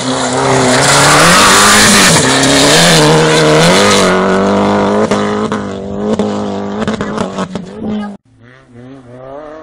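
Opel Corsa rally car passing close on a gravel road at high revs, its engine held with brief lifts while the tyres throw gravel with a loud hiss. It then pulls away. About eight seconds in the sound cuts off abruptly, and a fainter engine revs.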